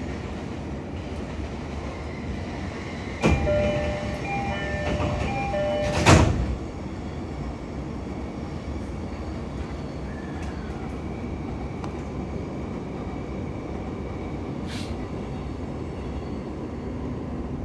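Inside a JR East E531 series commuter train: a door-closing chime of alternating tones sounds from about three seconds in, and the doors shut with a loud knock about six seconds in. The train then pulls away, its running noise steady.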